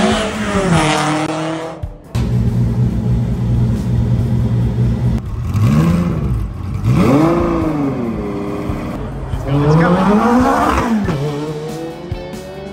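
Car engines in quick cuts: first an engine note dropping in pitch, then a steady idle, then a homemade car's Ferrari F12 V12 revved in several rises and falls. Another rev rises and drops near the end.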